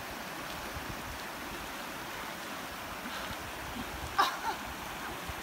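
Steady rushing of flowing water, with a brief sharp sound about four seconds in.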